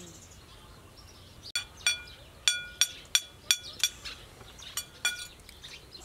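Metal spoon clinking against a dish in a run of sharp ringing taps, about three a second, starting about one and a half seconds in, with two more taps near the end.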